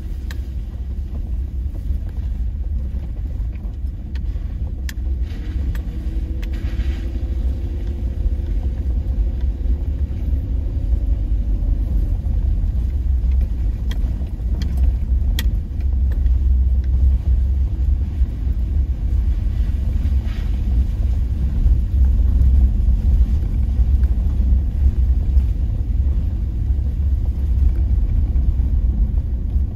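Vehicle driving slowly on a wet gravel road, heard inside the cabin: a steady low engine and tyre rumble, with a faint engine note rising gently partway through and a few sharp ticks.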